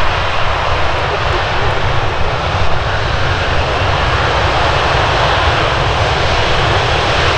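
Boeing C-17 Globemaster III's four turbofan engines running on the ground, a loud steady rushing jet noise with no change in pitch.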